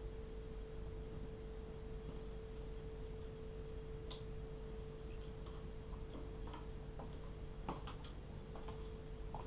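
A steady hum at one pitch, with faint, irregular clicks and taps.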